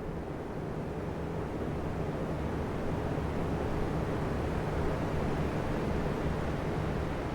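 Three oscillating electric fans running together: a steady rush of air with a low hum, growing louder over the first few seconds.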